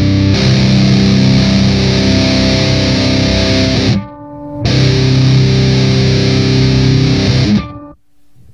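Electric guitar played through an Electro-Harmonix Nano Metal Muff metal distortion pedal. A distorted chord rings for about four seconds and cuts off sharply. A second chord rings for about three seconds and is cut off shortly before the end.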